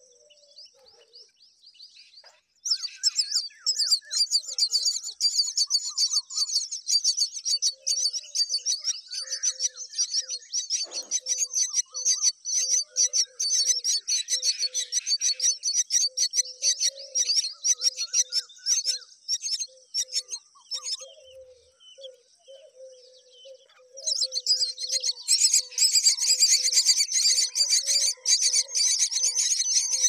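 Common myna nestlings begging: rapid, high-pitched chirping that starts a few seconds in, eases off briefly, then swells louder near the end as the parent arrives to feed them. Beneath it, a lower call repeats about once a second.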